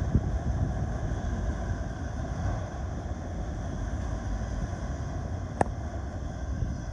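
Freight train cars rolling past: a steady rumble of steel wheels on rail with faint ringing tones above it. A single sharp click comes about five and a half seconds in.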